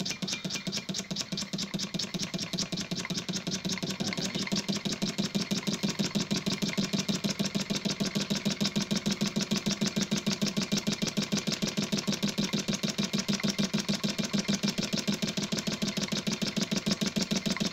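Scratch-built live steam engine running steadily, its exhaust beating in a fast, even rhythm over a constant hum, a little louder from about four seconds in. It is running on new steam oil, which takes a lot of the knock out of it.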